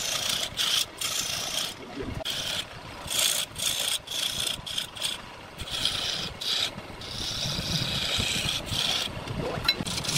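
Turning chisel cutting into a spinning wooden spindle on a lathe: a hissing scrape in repeated strokes, broken by brief gaps where the tool comes off the wood. The lathe's electric motor runs underneath.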